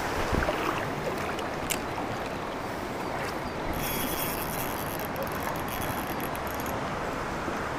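Shallow river water running steadily over a gravel bed, an even rushing close to the microphone.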